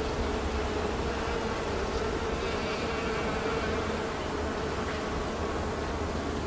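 Many bees buzzing together in a flowering Weigela bush, a steady overlapping drone that sounds a bit like a distant motorcycle racing track.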